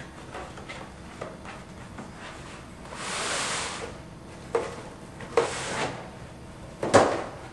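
A pleated air-cleaner filter being slid out of its box: a sliding scrape about three seconds in, another shorter one a little later, a few light knocks, and a sharper knock near the end.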